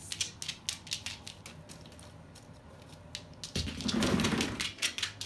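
Umbrella cockatoo's claws tapping and clicking on a hard floor as it runs, with a louder scuffling rush of noise about three and a half seconds in.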